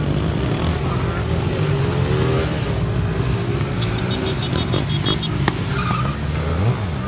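Motorcycle engines running at a wheelie meet, a steady low rumble under scattered crowd voices, with a sharp click about five and a half seconds in.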